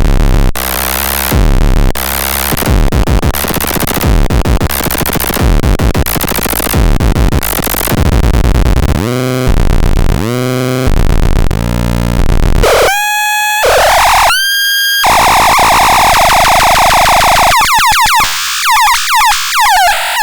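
Loud electronic music with a synthesizer: choppy, distorted bursts over heavy bass, then from about nine seconds in synth tones that sweep up and down, a few held tones, and warbling glides near the end.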